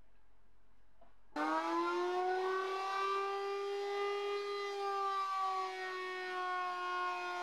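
Electric power sander switched on, its motor whining up to speed with a brief rise in pitch and then running at a steady high whine.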